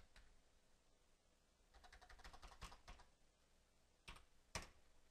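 Faint computer keyboard typing: a quick run of keystrokes about two seconds in, then two sharper clicks near the end.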